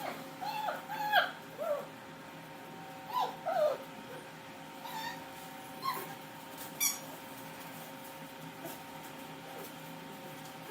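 Four-week-old German Shepherd puppies whimpering: short, high-pitched whines that come thick in the first couple of seconds, then in small groups, and die away about seven seconds in, over a faint steady hum.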